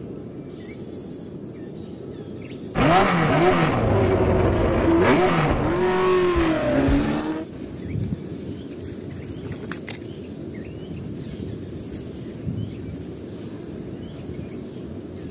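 Race car engine revving up and down, a loud burst of about five seconds starting about three seconds in. Around it, a low outdoor background with faint bird chirps.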